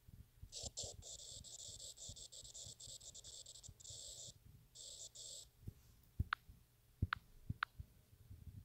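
Faint scratchy rubbing of drawing strokes on a phone's touchscreen, in runs of about a second, followed by a few light taps in the second half.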